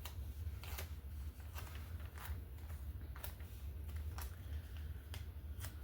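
Light handling of craft supplies on a work table: scattered faint clicks and taps as paper and washi tape are moved, over a steady low hum.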